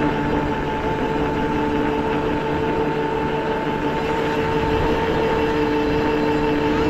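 Quad bike running at a steady speed, its motor holding one even note, with wind rumbling over the microphone as it rides.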